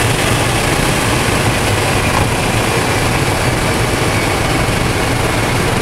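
Supercharged Corvette ZR1's engine and exhaust heard from inside the cabin at highway speed, a steady low drone without revving, mixed with wind and road noise.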